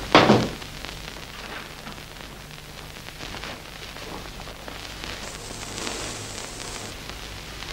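A door shutting with a loud bump just after the start, then faint rustling of a coat being taken off over a steady hiss.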